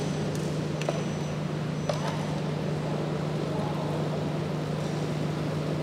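Steady low hum over a constant background noise, with a few faint short clicks about one and two seconds in.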